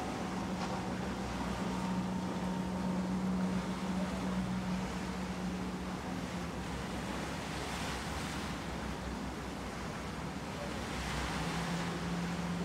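Wind on the microphone and the rush of water at a ship's bow. A steady low motor hum runs underneath, drops out about halfway and comes back near the end.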